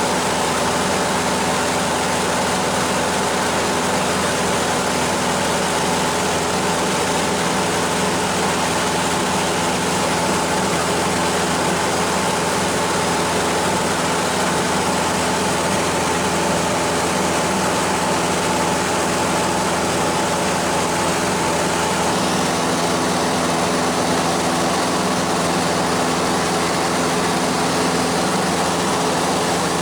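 Small airplane's engine droning steadily inside the cabin, a constant hum of several steady tones over a wide rushing noise. One of its higher tones fades out about two-thirds of the way through.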